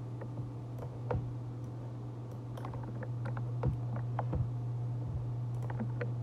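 Scattered, irregular clicks of a computer mouse and keyboard as the software is operated, over a steady low hum.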